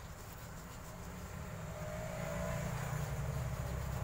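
A low engine rumble, like a passing motor vehicle, that swells louder over the second half.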